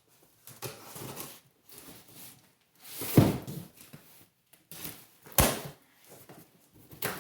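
Packaging being handled during unpacking: a run of rustles and knocks, with a heavy thump about three seconds in and a sharp knock about five and a half seconds in.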